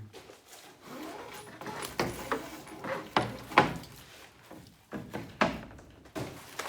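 A series of irregular wooden knocks and clunks, about seven of them, the loudest about three and a half seconds in.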